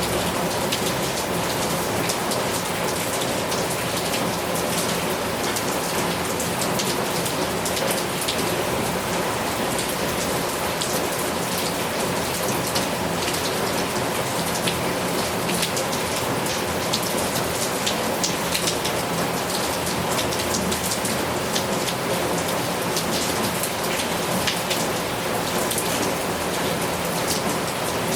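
Heavy rain falling steadily, with many individual drops striking close by.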